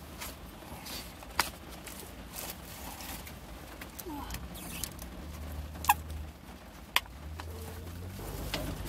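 A person eating inside a car: small handling and chewing noises, with a sharp click or smack about a second and a half in and two more a second apart later on, over a low steady hum.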